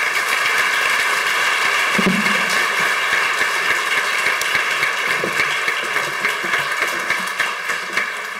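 Audience applauding steadily, a dense patter of many hands clapping that begins to die away near the end.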